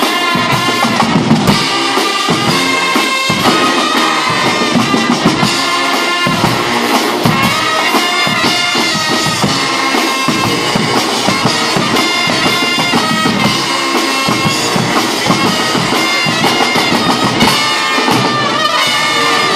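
A Guggenmusik carnival band playing loud: trumpets, trombones and sousaphones play a chord-heavy tune over bass drums, snare drum and cymbals keeping a steady beat.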